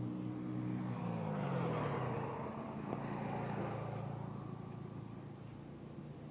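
A motor vehicle passes on the road: its engine note drops in pitch as it goes by, and its road noise swells and then fades away.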